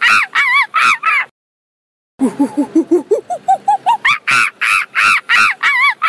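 Chimpanzee pant-hoot calling: a run of high, arching screams breaks off suddenly about a second in, and after a short gap a new series begins with low hoots that climb in pitch and speed up into repeated high screaming calls.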